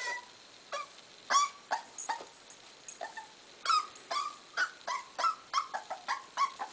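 Seven-week-old corgi puppy whimpering: a string of short, high-pitched cries, sparse at first and then coming two or three a second in the second half, as it tries to get down the stairs.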